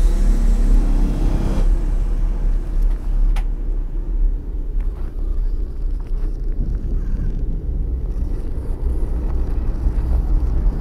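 Steady low rumble of a toy train rolling along wooden BRIO track, carrying the camera, with a sharp click about three and a half seconds in.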